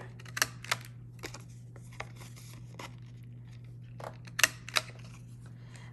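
Handheld corner rounder punch cutting the corners off cardstock: a handful of sharp clicks and snaps with paper handling between them, the loudest pair about four and a half seconds in.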